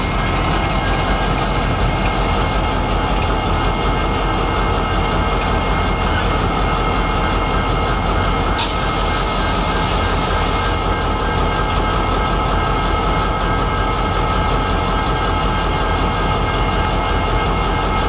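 Canadian National diesel-electric locomotives idling in a steady drone, with several held tones over the engine rumble. A brief higher hiss comes about halfway through.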